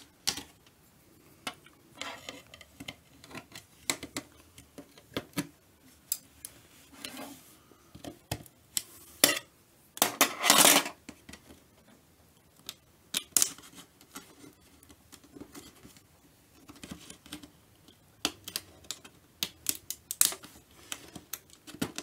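Scattered clicks, taps and short scrapes of an LED backlight strip being prised off a TV's metal backplate, with the loudest, a longer scrape, about ten seconds in.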